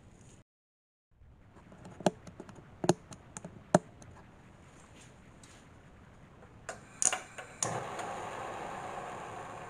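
A wok knocks a few times against a gas stove's burner grate. A quick series of clicks follows, and then, about eight seconds in, a steady rushing hiss starts as the gas burner lights and burns.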